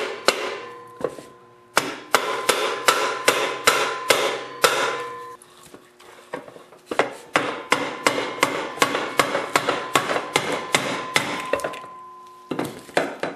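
Rubber mallet tapping the end of a 5 hp Briggs & Stratton engine's crankshaft to work the sump cover off past the shaft. Quick repeated strikes, about three a second, come in several runs with short pauses, and the metal rings after each one.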